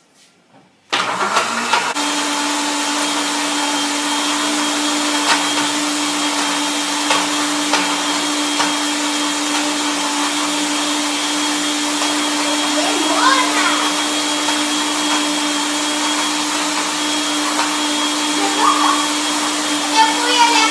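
Countertop electric blender switched on about a second in, its motor then running steadily at one speed while blending a smoothie.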